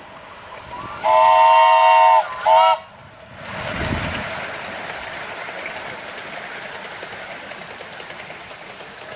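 Miniature railway locomotive whistle: one long blast, then a short one. About a second later the train runs by with a rising rush of noise that settles into a steady running sound.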